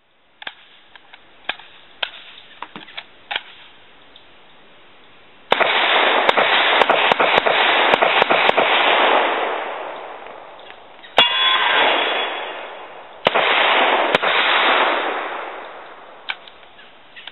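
Semi-automatic Group Industries short-barreled Uzi fired in quick strings. A few small clicks of handling come first, then a fast run of shots starting about five seconds in, a single loud shot near eleven seconds with a brief ring after it, and a second run around thirteen seconds, each dying away slowly.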